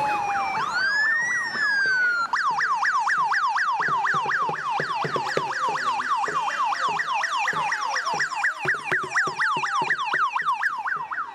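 Vehicle siren: one slow rising and falling wail, then about two seconds in it switches to a fast yelp of about four to five sweeps a second.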